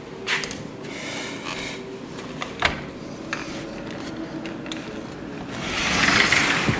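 Sliding glass balcony door being worked open: a few sharp clicks and knocks from the latch and frame over a rolling rub. Near the end a rush of wind and surf noise swells in as the door opens.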